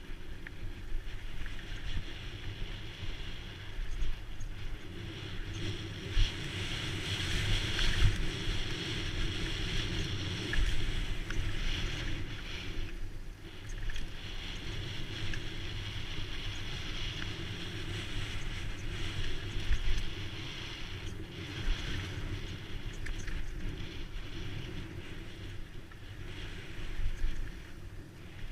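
Wind rushing over an action camera's microphone while riding a mountain bike down a rough trail, with rumble from the tyres and suspension and frequent knocks from bumps.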